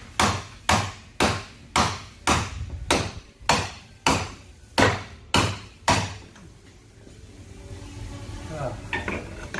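A hammer striking metal in a steady series of sharp blows, about two a second, about eleven in all, stopping about six seconds in. The blows are knocking loose the lock ring on the fuel pump module.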